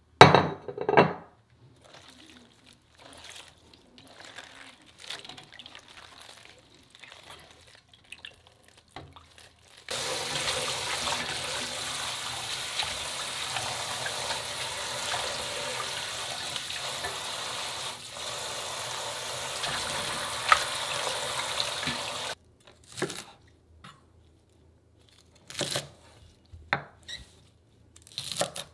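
Tap water running steadily into a stainless steel bowl of minari (water dropwort) as the stems are rinsed by hand, stopping abruptly after about twelve seconds. Before it come a brief loud handling sound and faint rustles. After it, a few separate strokes of a knife cutting minari stems on a wooden cutting board.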